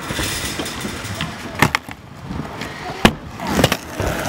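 Skateboard wheels rolling, with sharp clacks of the board about a second and a half in and again around three seconds, then a few lighter knocks.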